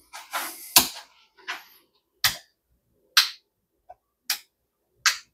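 Sharp, single clicks about once a second, five in all, from the push button on an UltraPro hardwired under-cabinet LED light being pressed to switch it on and step through its three colour settings.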